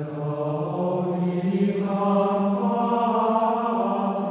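Plainchant sung by low men's voices in unison on long held notes, the pitch stepping up a little about two seconds in.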